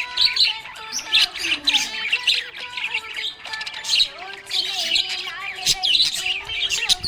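Budgerigars chirping and warbling, many short high chirps overlapping one another without pause.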